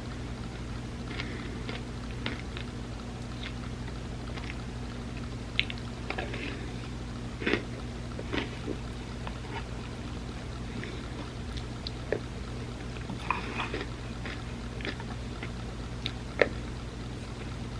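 Close-miked eating sounds: soft chewing and wet mouth clicks of someone eating a chocolate and peanut butter tortilla dessert lasagna. Short sharp clicks are scattered through, the loudest about sixteen seconds in, over a steady low hum.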